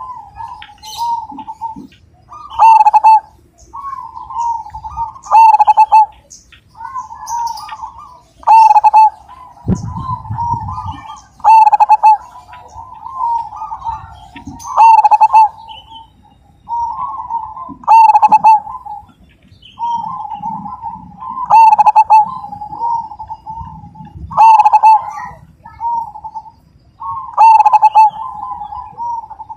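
Zebra dove (perkutut) singing: loud, rolling staccato cooing phrases repeated about every three seconds, with softer cooing between them.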